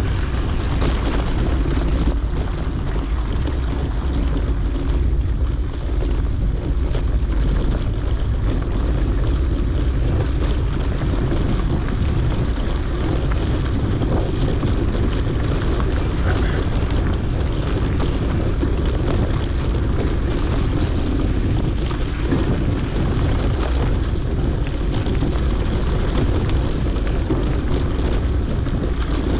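Steady wind noise rushing over a GoPro action camera's microphone on a moving mountain bike, heaviest in the low range, with small knocks and rattles from the bike rolling over the dirt track.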